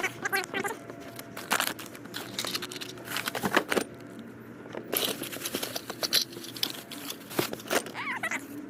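Clothes and bagged items rustling and crinkling as they are handled and sorted from a storage bin, in a string of short, irregular rustles.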